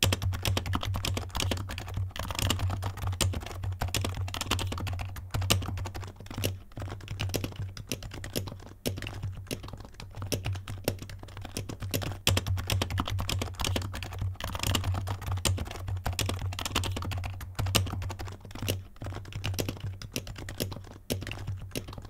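Fast continuous typing on a Happy Hacking Keyboard Professional 2 Type-S with silenced Topre switches, a dense run of soft key clicks, picked up by a microphone resting on the desk. The keyboard is first unmatted, then fitted with a dampening mat that cuts the vibration into the desk. A steady low hum runs underneath.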